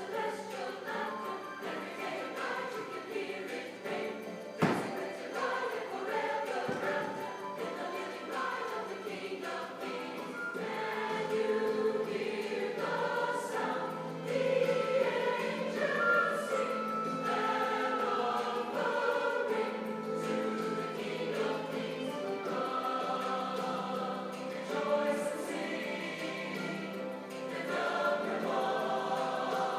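Choral music: a choir singing sustained, shifting chords. A single thump cuts in about five seconds in.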